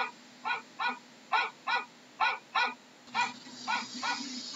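Dog barking over and over in quick, sharp barks, mostly in pairs, two or three a second, with a hiss rising behind them in the second half.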